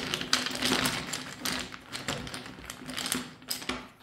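Rune stones clicking and rattling against each other in quick, irregular clicks as they are stirred by hand to draw one.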